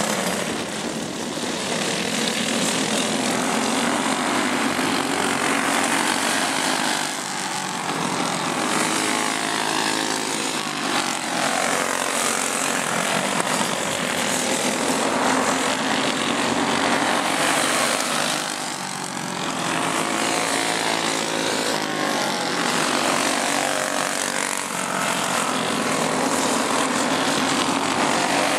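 Several go-kart engines racing around a dirt oval, a steady buzz whose pitch rises and falls and whose level swells and fades as the karts come past.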